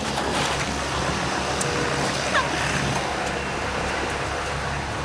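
A city bus's diesel engine running close by with a steady low rumble, over road traffic noise.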